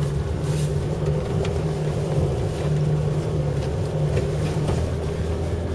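Engine of an Arctic Trucks-modified 4x4 truck running steadily under load as it climbs off-road, a low drone heard inside the cab. A few short knocks come through it.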